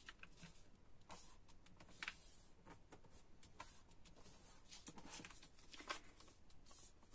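Faint rustling and soft crinkles of a sheet of paper being folded and pressed flat by hand, in short scattered touches.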